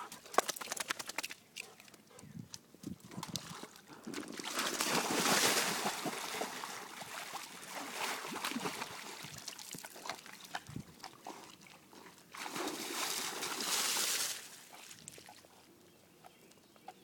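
German Shorthaired Pointer's claws scrabbling on the vinyl wall of an inflatable pool, then water splashing and sloshing as the dog jumps in and paddles after a ball. The splashing comes in bursts, loudest about five seconds in and again around thirteen seconds.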